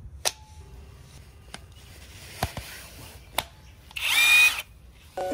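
Xtra Power XPT-485 cordless impact wrench: a sharp click as its battery pack snaps in, a few handling clicks, then a short trigger pull at about four seconds in that spins the motor with a high whine for about half a second.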